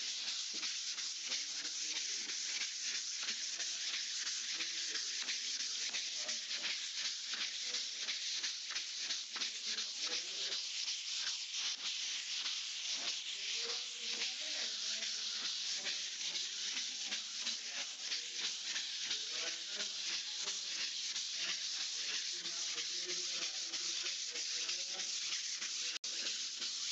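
Dry CUMI sandpaper rubbed by hand over dried wall putty: a continuous scratchy hiss made of quick back-and-forth strokes. This is the sanding that levels the putty coats smooth before primer.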